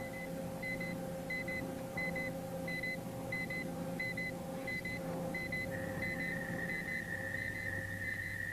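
Electronic beeping: short high-pitched double beeps repeat about one and a half times a second. About halfway through they change to one steady, slightly lower tone. A steady hum runs underneath.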